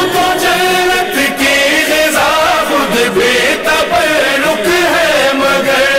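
Male voice singing an Urdu manqabat (Shia devotional song) in a drawn-out, wavering melodic line, with other voices chanting behind it.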